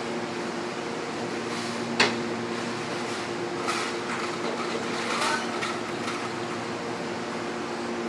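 Electric reach truck in a warehouse aisle, a steady low hum with a sharp click about two seconds in and some light rattling and clatter around the middle.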